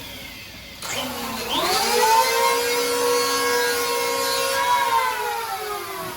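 Electric hand planer switched on about a second in, its motor whine rising quickly to full speed, running steadily for about three seconds, then winding down near the end.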